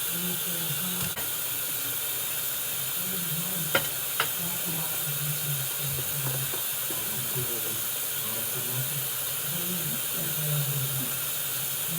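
Steady hiss with faint muffled voices underneath, and two sharp clicks about four seconds in.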